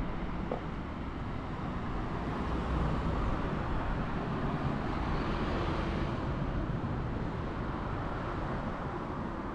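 Road traffic noise: a steady rush of passing vehicles, with one vehicle going by and growing louder about midway.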